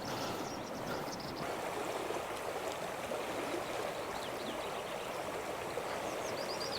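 Small river flowing: a steady rush of running water, with a few faint high chirps over it.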